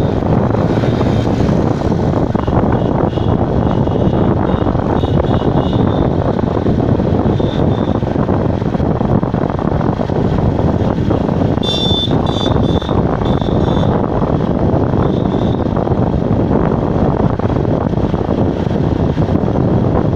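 Steady road noise from riding in a moving vehicle: the engine running and air rushing over the microphone. There are a few short high-pitched beeps, clustered around the middle.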